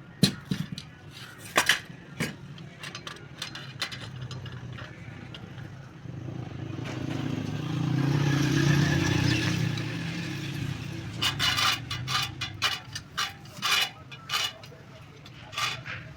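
Sharp metal clicks, clinks and knocks from work on a motorcycle wheel, coming quicker near the end. In the middle a motor vehicle's engine passes, rising and then fading over several seconds.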